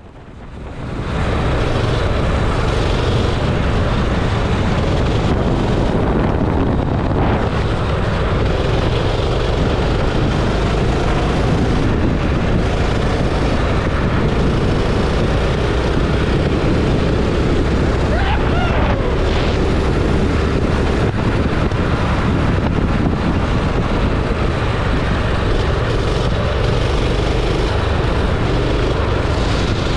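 Go-kart engine running as the kart is driven on the track, with heavy wind buffeting on the microphone. The engine's pitch wavers faintly as the revs change.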